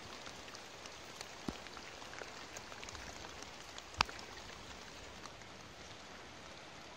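Steady rain falling: a soft, even hiss with many small drop ticks scattered through it, and one sharper drop tick about four seconds in.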